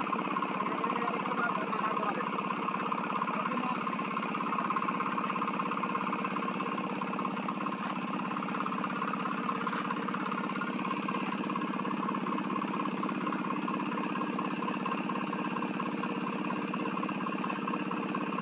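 An engine running steadily with an even, unchanging hum.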